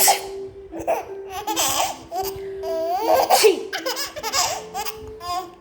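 Baby laughing in repeated bursts, set off by an adult's sneezes.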